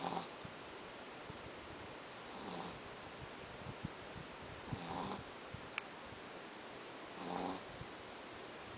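A Pekingese dog snoring in its sleep, one pitched, rasping snore about every two and a half seconds, which the owner puts down to the breed's flat face. A single sharp click comes about two-thirds of the way through.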